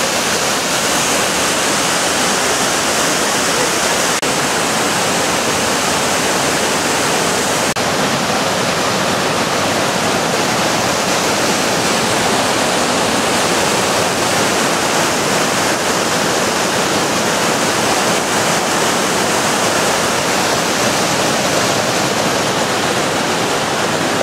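Mountain river cascading over boulders: a loud, steady rush of white water close by, with no breaks or changes.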